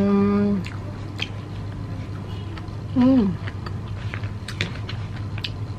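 A woman eating with chopsticks: small clicks of chewing and mouth sounds, with a voiced hum on one note that ends about half a second in and a short hum falling in pitch about three seconds in.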